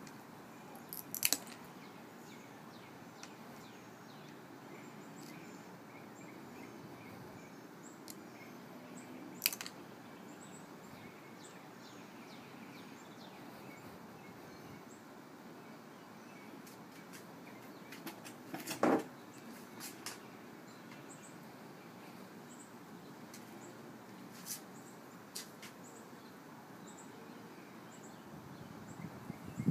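Scattered sharp clicks and snaps of stained glass pieces being nipped with pliers and set down on the wooden board, the loudest a little past the middle, over a steady outdoor hiss with faint bird chirps.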